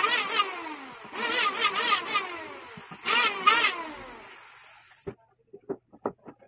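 Handheld power tool run in three bursts, its motor pitch wavering under load and sliding down as it winds down after each release. It stops about five seconds in, and several light wooden knocks follow.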